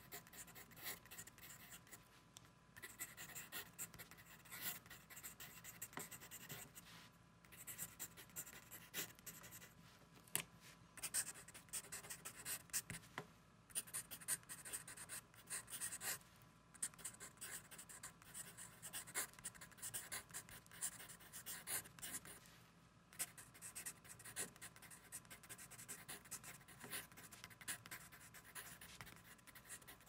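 Faint writing on paper with a pen or pencil: irregular scratchy strokes and small ticks, with no steady rhythm.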